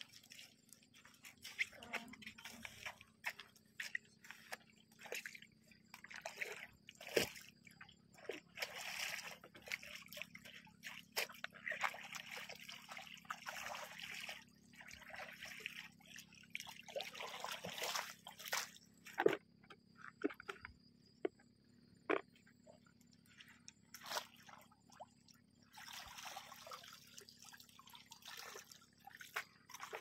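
Water splashing and dripping in irregular bursts as hands scoop lake water at the shoreline and let it run off, with a few sharp clicks among the splashes.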